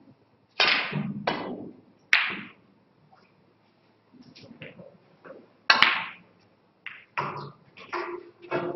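Sharp clacks of snooker balls, each ringing briefly in the room: three in the first two seconds, the loudest just past halfway as the cue ball is struck, then a quick run of four more as balls collide and come off the cushions.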